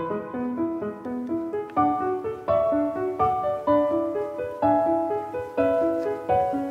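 Background piano music: a steady run of single struck notes forming a gentle melody.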